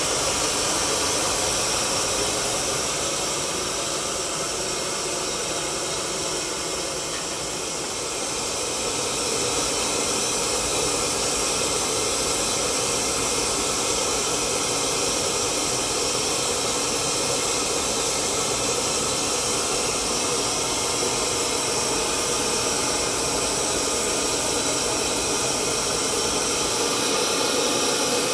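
Gas burner firing into a kiln: the flame makes a steady rushing hiss, easing slightly for a moment about seven seconds in.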